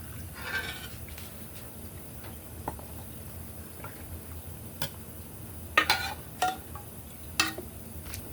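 Glass Mason jars and kitchen utensils clinking and tapping while brine is dished into the jars: about half a dozen sharp clinks with a short ring, most of them in the second half.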